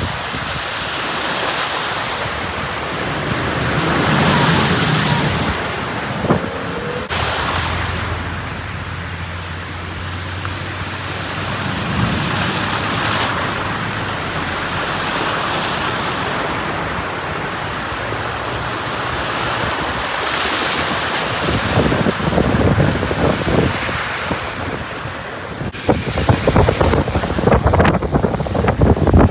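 Vehicles driving through deep standing water on a flooded road, their tyres throwing up spray with a rushing, splashing hiss that swells as each one passes. Wind buffets the microphone in the last few seconds.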